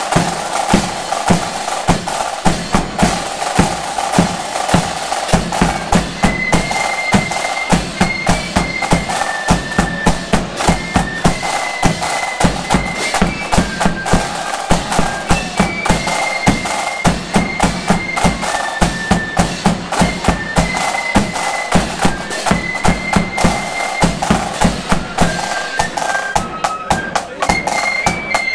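Loyalist flute band playing a march. Bass drum, snare drums and cymbals keep a steady beat of about two strokes a second, and the flutes come in with the melody about six seconds in.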